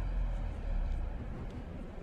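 Jacket zipper pull clicking faintly about twice a second as the wearer walks, over a steady low rumble of city street sound.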